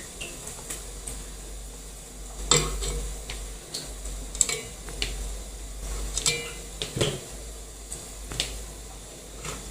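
Dishes and kitchen utensils clinking and knocking as momos are set out for cooking: a handful of separate knocks, the loudest about two and a half seconds in, over a steady low hum.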